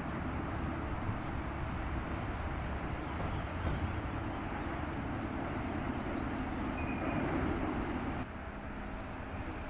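Steady low engine rumble in the open air, with a few faint high chirps in the middle; the rumble drops a little, suddenly, about eight seconds in.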